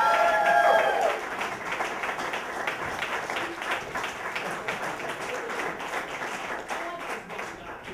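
Audience applauding. The clapping is loudest in the first second, where a few voices cheer, then it slowly dies away.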